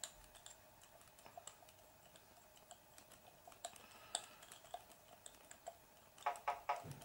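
Faint scattered clicks and ticks of a hand hex driver and small metal parts as a screw is turned into an aluminium lock nut. Near the end, a short run of about four buzzes from a phone's text-message alert.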